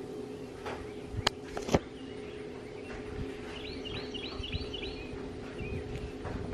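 A bird gives a quick run of about five short, high chirps midway, over a steady low hum. Two sharp clicks, the loudest sounds, come a little over a second in.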